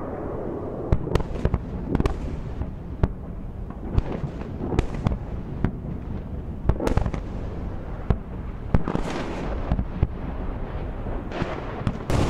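Iron Dome interceptor missiles detonating against incoming rockets overhead: an uneven, rapid series of sharp bangs and booms, about two a second, over a steady low rumble.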